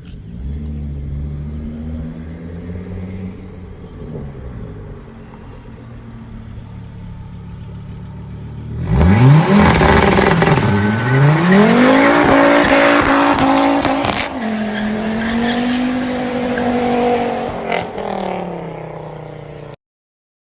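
Car engine running at low revs, then about nine seconds in it accelerates hard, the pitch climbing, dropping at a gear change and climbing again before holding steady. The sound cuts off suddenly near the end.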